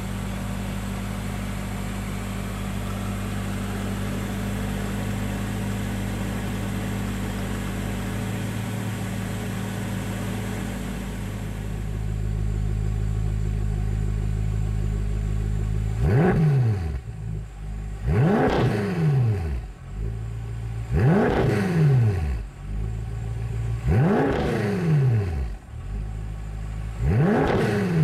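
BMW M5 (F10) 4.4-litre twin-turbo V8 idling steadily, then revved five times from idle, about one blip every three seconds in the second half, each rising sharply and falling back to idle within about a second.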